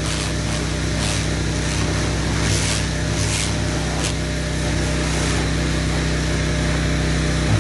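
Pressure washer running steadily, its high-pressure jet spraying onto a tractor's bodywork, with the hiss of the spray swelling and fading several times.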